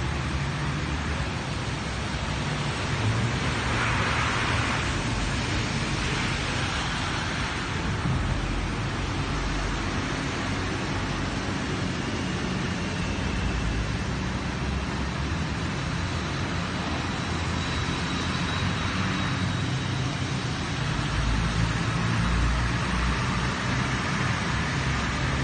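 Steady hiss of road traffic and water on a flooded street, with a vehicle engine's low rumble growing louder about three-quarters of the way through.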